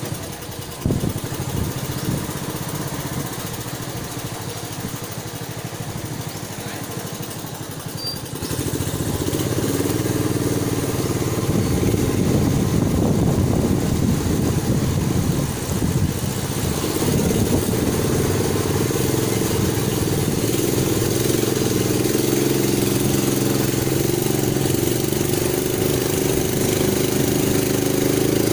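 Longtail boat engine running, steady at first, then opened up about eight seconds in and running louder, its pitch rising and wavering with the throttle.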